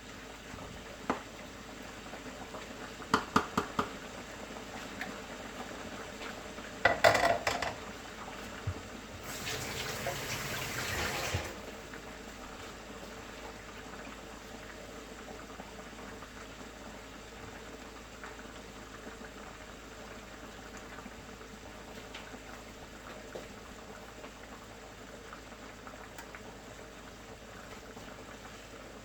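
Kitchen sounds around a simmering pot: sharp clinks of metal on cookware about three to four seconds in and again around seven seconds, then about two seconds of rushing, pouring liquid around ten seconds in. After that comes a steady faint hiss of the simmering pot.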